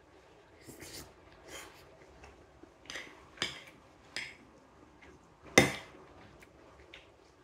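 Metal spoon scraping and clinking against a ceramic bowl as food is scooped up, several short strokes with one sharp, loud clink about five and a half seconds in.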